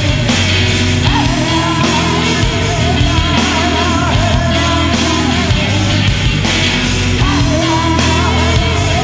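Rock band playing live: distorted electric guitars over bass and drums, at a steady loud level with regular drum hits.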